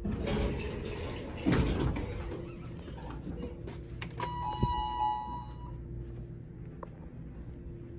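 ThyssenKrupp hydraulic elevator's car doors sliding open with a rush of noise and a couple of knocks. About four seconds in comes the elevator's short electronic beep, about a second long, in place of the usual buzzer.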